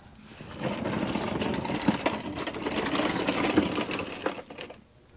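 A handheld power driver runs with a fast rattle for about four seconds, loosening the bolts of a brake bracket, then stops.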